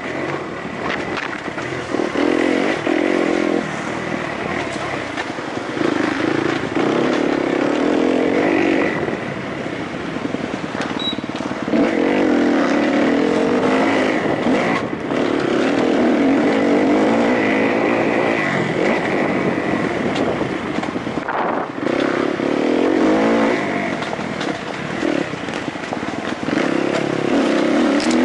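Kawasaki KX-F four-stroke motocross bike engine heard from on board, revving up in surges and falling back every few seconds as the throttle is opened and closed.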